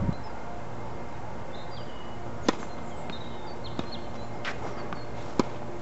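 A tennis rally: a tennis ball struck by rackets and bouncing on the hard court, heard as a few sharp pops. The loudest comes about two and a half seconds in and another just before the end, with fainter ones between.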